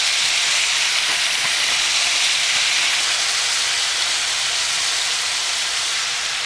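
Raw shrimp sizzling in hot oil with garlic in a frying pan, a steady loud hiss. The sizzle eases slightly toward the end as the pan cools quickly under the load of shrimp.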